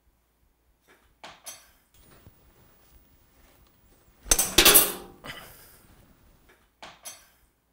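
Kitchen cookware clattering: a couple of light knocks, then a louder clatter of pots and pans with a brief ring a little past the middle, and two more knocks near the end.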